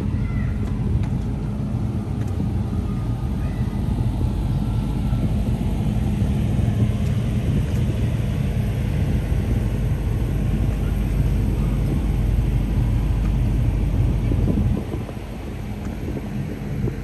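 Steady low rumble of outdoor town ambience, easing off briefly near the end.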